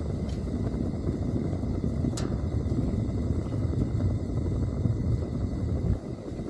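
Hot-air balloon propane burner firing, a steady low rushing noise that quietens abruptly about six seconds in as the burner is shut off.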